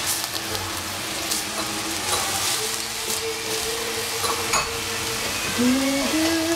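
Shredded cabbage sizzling in a stainless steel saucepan over a gas burner as it is stirred with a wooden utensil, with scattered light scrapes and clicks against the pan.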